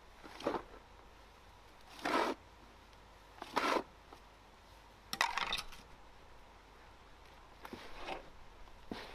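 About five short scrapes and rustles, each under half a second, one to two seconds apart.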